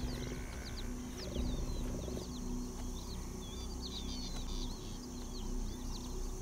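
Many small birds chirping, a dense scatter of short, quick high notes that slide up and down in pitch, over a low steady hum.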